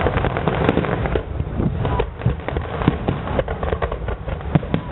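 Aerial fireworks bursting: many pops and bangs in quick succession.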